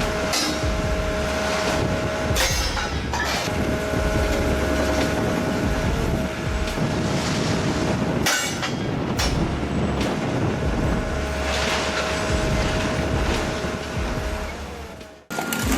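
Heavy hydraulic machinery working scrap steel rail: a steady whine over a low rumble, with several sharp metal clanks. It cuts off suddenly near the end.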